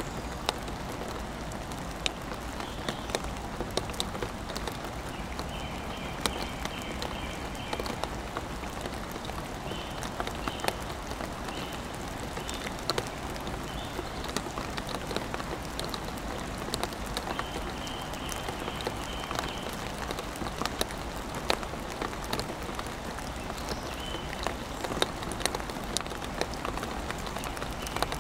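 Steady rain falling, with many sharp individual drops tapping at irregular moments close by.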